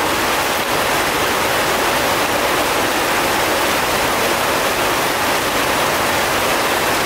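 Steady heavy rain pouring down, an even hiss of falling water.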